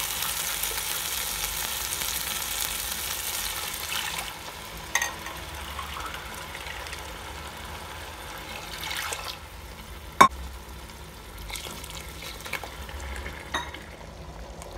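Mutton stock poured into a hot pot of masala, sizzling for about four seconds, then a quieter steady hiss with a few sharp clicks, the loudest about ten seconds in.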